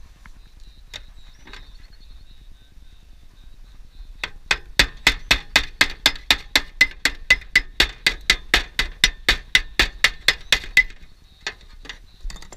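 Rapid, even taps of an orange-headed plastic mallet on a flat steel blade held against aluminium roofing sheet, about four to five strikes a second for some six seconds, each with a short metallic ring. Then two single knocks.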